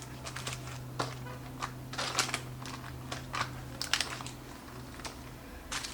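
Scattered light clicks, taps and soft rustles of packaged stationery items and their packaging being handled and set down, over a faint steady low hum.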